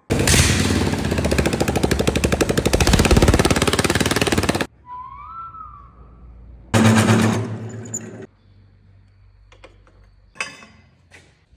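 Single-cylinder Briggs & Stratton lawn mower engine running with no muffler, a loud, fast, even popping from the open exhaust port that cuts off suddenly after about four and a half seconds. A brief whistle-like tone follows, then a second short loud burst of the engine and a few light taps.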